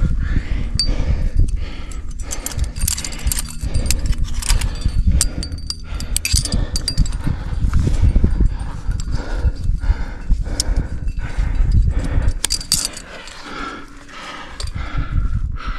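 A rock climber breathing hard while climbing, with metal climbing gear clinking in short bursts over a fluctuating low rumble of wind and rubbing on the GoPro microphone.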